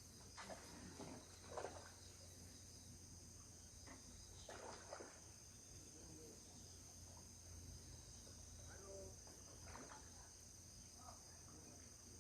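Faint, steady high-pitched chirring of insects, with a few soft scattered knocks and rustles.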